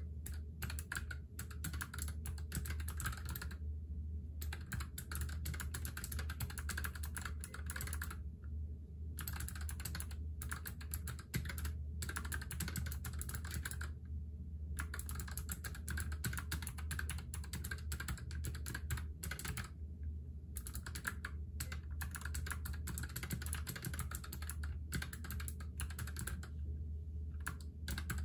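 NuPhy Air75 low-profile mechanical keyboard with clicky blue switches being typed on fast: a dense stream of key clicks broken by short pauses about every five or six seconds. A steady low hum runs underneath.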